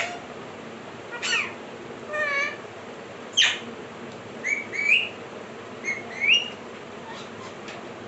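Alexandrine parakeets calling: a string of short, separate calls, some harsh squawks sweeping down in pitch and some whistled chirps rising in pitch, spaced about a second apart.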